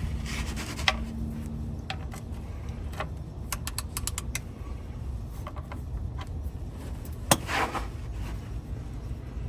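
Scattered metallic clicks and knocks of hand tools and parts being handled while getting the oil change started, including a quick run of clicks and one sharper knock followed by a short scrape, over a low steady rumble.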